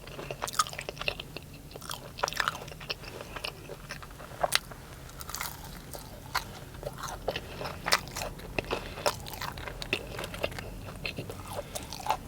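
A person biting and chewing crispy fried breaded food close to the microphone, with many short crunches and wet mouth clicks.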